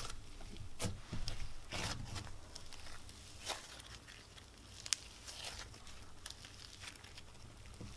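Thick icy cloud-dough slime being stretched and pulled apart by hand, giving off small crackling, tearing sizzles with scattered pops, the sharpest about five seconds in, growing fainter toward the end.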